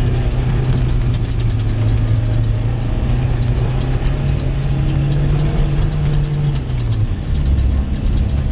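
Jeep engine running at low revs, a steady low drone whose pitch lifts slightly midway and then drops lower near the end.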